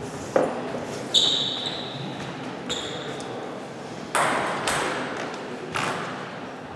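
Table tennis ball knocks: a dull knock just after the start and two ringing pings about one and three seconds in, then sharper clicks of ball on bat and table from about four seconds in as a doubles rally begins.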